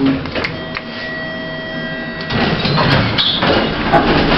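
1980s Thyssen passenger lift in operation: a steady whine of several tones holds for about two seconds, then gives way to louder rumbling and clatter.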